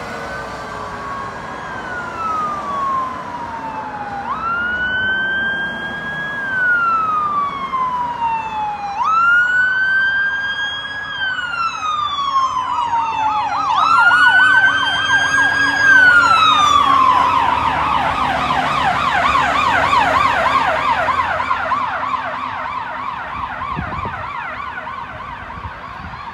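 Fire truck sirens sounding a wail, each cycle rising quickly, holding and falling slowly. About 17 s in they switch to a fast yelp. The sound grows louder toward the middle, then fades as the trucks go away.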